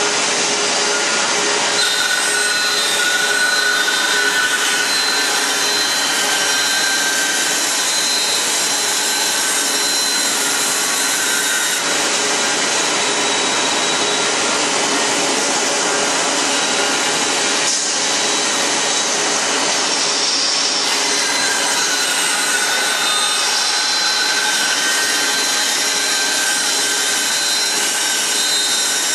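CNC band saw running and cutting a curved chair-leg profile through a stack of wooden boards: a loud, steady noise with a higher whine that comes in twice.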